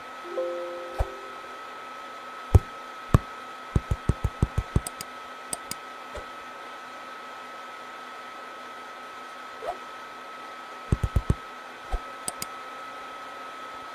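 Windows error chime as an 'Access is denied' dialog pops up, over a steady whirring hum with a high whine, like an overloaded computer's fan. Sharp mouse-like clicks come singly and in a quick run of about seven, and again in a cluster of four near the end.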